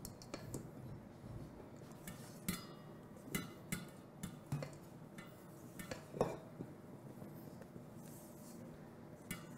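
A spatula folding chocolate sponge batter in a stainless steel mixing bowl: faint scraping with scattered light knocks and clinks of the spatula against the metal bowl.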